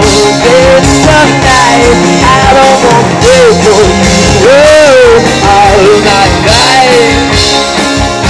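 Live rock band playing loudly: guitars, bass and drums with a steady beat, and a melody line that slides up and down in pitch.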